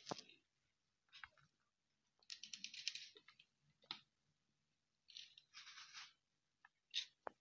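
Faint crackling and rustling in short bursts, two of them lasting about a second, with a few sharp clicks near the start and near the end.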